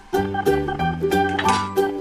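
Background music: a tune of short, evenly spaced notes over a bass line.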